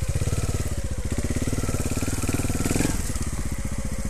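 Trials motorcycle's single-cylinder engine running at low revs with a steady, even pulse as the bike creeps over the ground, briefly a little louder near three seconds in.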